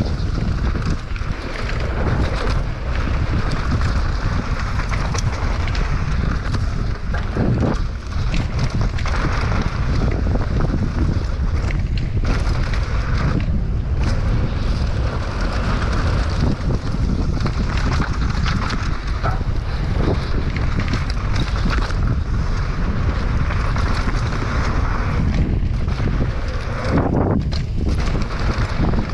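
Wind buffeting the action camera's microphone on a fast mountain bike descent, mixed with the Specialized Enduro's knobby tyres rolling over dry, loose dirt and the bike's rattles and knocks over bumps.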